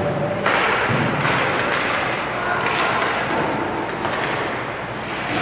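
Ice hockey in play in an echoing rink: a steady scraping hiss of skates on the ice, with a few sharp knocks of stick and puck and a thud.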